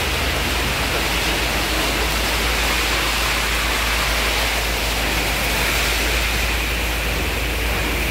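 Belanger car wash tunnel running: spinning wrap brushes scrubbing a vehicle amid water spray, a loud, steady rushing noise over a low machinery hum.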